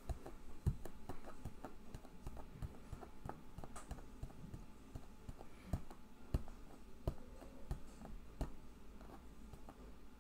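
Faint, irregular small clicks and light taps, several a second, over a low steady room hum.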